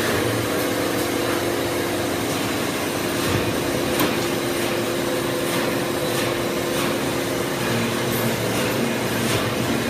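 Steady hum of workshop machinery running, a few held tones over a noisy wash, with faint irregular clicks.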